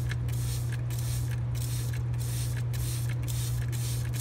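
Plastic trigger spray bottle misting water onto toilet paper wrapped around a papier-mâché form, a rapid series of short hissing spritzes, two or three a second. A steady low hum runs underneath.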